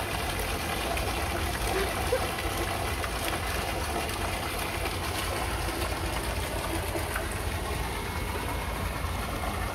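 Steady rushing of running water, with a low rumble beneath it.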